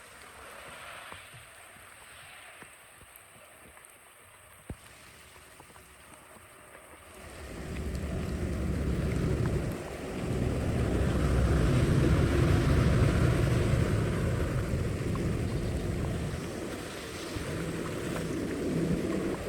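Flowing water, faint at first. About seven seconds in, a loud, low rushing of water sets in and keeps going.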